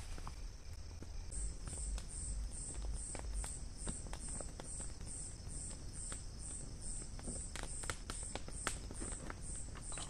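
A night insect chirping in a steady high-pitched pulse, about four chirps a second, starting a little over a second in. Scattered light clicks and knocks come and go beneath it.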